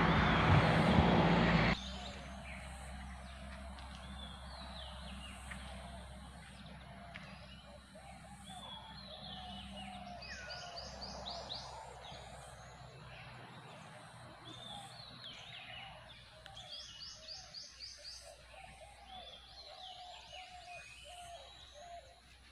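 Several birds calling and singing, with repeated fast high trills and softer lower calls. A loud rushing noise fills the first two seconds and cuts off suddenly.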